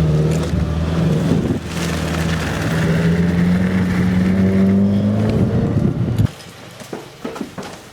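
Car engine running as the car drives, its note rising slowly and steadily, then cutting off abruptly about six seconds in.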